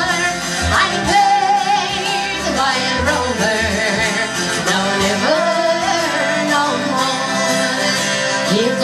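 Irish folk band playing live: acoustic guitar, fiddle, double bass and a small wind instrument together, the melody wavering with ornaments over a steady bass.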